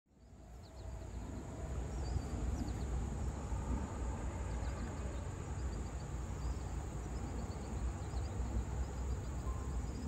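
Outdoor ambience: a steady low wind rumble on the microphone, scattered short bird chirps and a steady high insect drone. It fades in over the first second.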